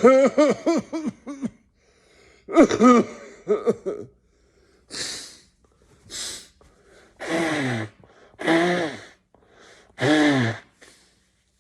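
A person's coughing fit: two bursts of rapid hacking coughs, then two breathy gasps and three drawn-out wheezing breaths, each falling in pitch.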